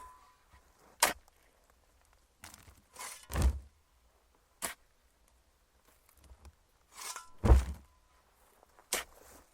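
Shovel digging in dirt: a series of separate strokes, each a short scrape or crunch of the blade cutting into the soil, with two heavier thuds about four seconds apart.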